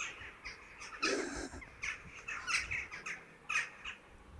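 Crows cawing: several short calls spread through a few seconds.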